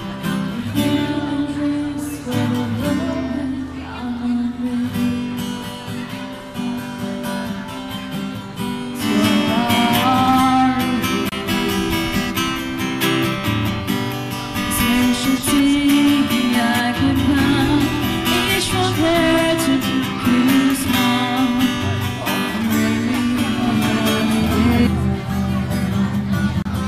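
Live busking: an acoustic guitar strummed with singing, amplified through microphones and a speaker on a stand. The singing comes in louder about a third of the way in.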